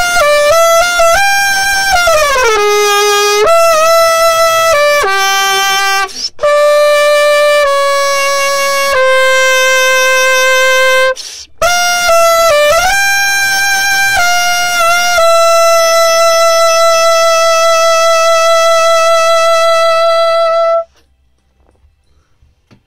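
Unaccompanied trumpet playing a slow bolero melody, moving smoothly between notes with a few pitch glides and two short breath pauses. It ends on one long held note of about five seconds that stops cleanly a couple of seconds before the end.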